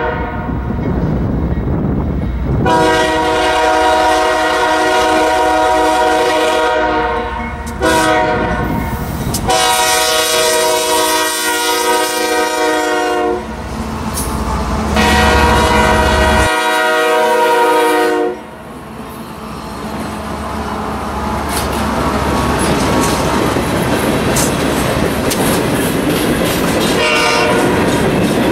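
CSX freight train passing close: the lead diesel locomotive's multi-tone air horn sounds a series of long blasts with one short blast among them, over the heavy rumble of the diesel engines. From about two-thirds of the way in the horn and engine rumble fall away, leaving the steady rolling clatter and rattle of the hopper cars' wheels on the rails.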